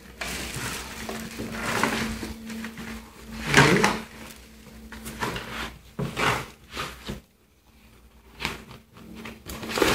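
Cardboard scraping and rustling as a boxed power drill is slid and lifted out of a corrugated shipping carton, with plastic air-cushion packing crinkling; irregular bursts, the loudest about three and a half seconds in.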